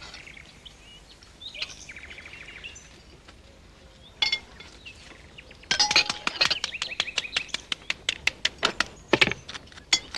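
Cutlery and china clinking at an outdoor meal: a quick, irregular run of knife-and-fork clicks on plates from a little past halfway to near the end. Birds chirp in the background, with a short fast trill early on.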